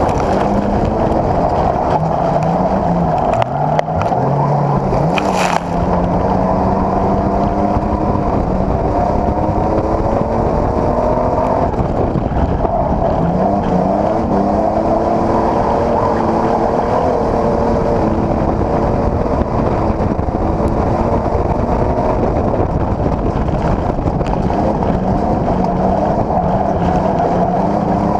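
Dirt-track race car's engine at full race pace, heard from inside the cockpit, its pitch rising and falling again and again as the car laps the track.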